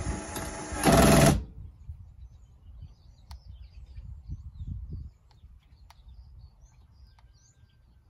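Atwood truck camper jack's electric motor runs for about a second and a half, getting louder, then cuts out abruptly. The jacks stop after only a moment instead of lowering, an intermittent fault that the owner suspects lies in the activation (on-off) switch of the jack controller.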